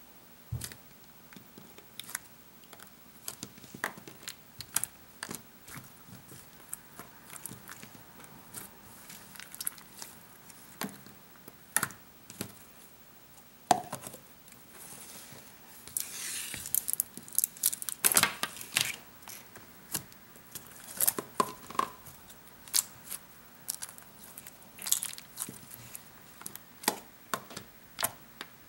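Hands handling small plastic slime containers and their packaging: scattered sharp clicks and taps, with a stretch of crinkling, tearing plastic wrap a little past the middle.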